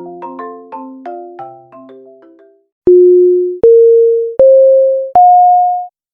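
A light mallet-instrument melody fades out, then four loud electronic beeps follow one after another, each about three-quarters of a second long and each higher in pitch than the last.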